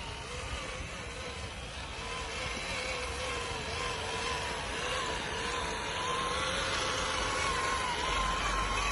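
Small electric motor whining steadily, its pitch wavering and creeping slightly upward as it grows gradually louder.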